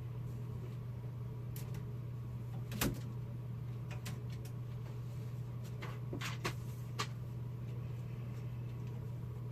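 A few scattered knocks and clicks of someone handling things around a room, the loudest about three seconds in, over a steady low hum.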